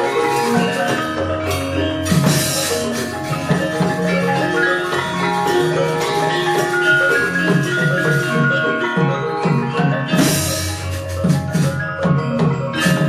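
Javanese gamelan ensemble playing a steady, flowing piece led by struck metallophones, many ringing notes overlapping. Two short, bright crash-like strikes stand out, about two seconds in and again about ten seconds in.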